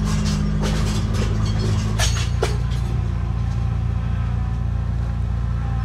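Heavy-equipment diesel engine running steadily under load, its note changing about two seconds in, with scattered knocks and a sharp clank over the first two seconds.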